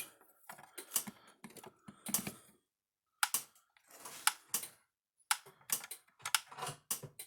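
Gallagher MPE2 electric fence charger clicking as it fires its pulses, roughly once a second, with other small clicks and taps in between. The unit is pulsing normally and putting out voltage.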